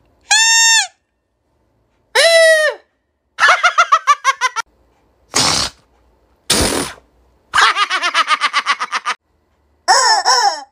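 A quick run of comic noisemaker sounds: toots from a plastic toy horn, squealing and sputtering air from a balloon, and a squawk from rubber chickens. About seven separate short sounds with gaps between them. Some slide down in pitch, and two rattle in a fast stutter.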